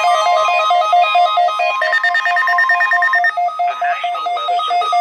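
Weather alert radio alarm beeping in a rapid, repeating two-pitch pattern during a NOAA Weather Radio weekly test, over a steady alert tone that cuts off about three seconds in; the beeping carries on after it stops.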